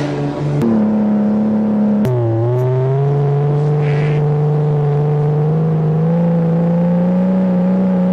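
1982 Toyota Cressida engine pulling under acceleration on a test drive. The pitch steps once about half a second in and drops about two seconds in as the automatic transmission shifts up, then climbs steadily as the car gathers speed. The engine is running well again after water was flushed from its fuel injection.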